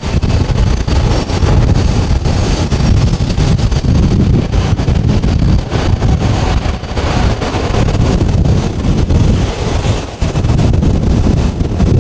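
Boeing 747-8's four GEnx turbofans at takeoff thrust, a loud steady roar with a heavy low rumble as the jet rotates and lifts off, with wind buffeting the microphone.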